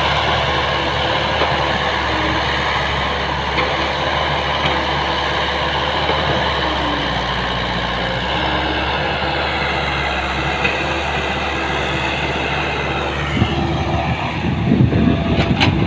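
Hino Mega dump truck's turbocharged, intercooled J07E diesel engine pulling steadily under load as the truck climbs. The engine note drops in pitch about two-thirds of the way through, and the sound turns rougher and louder near the end.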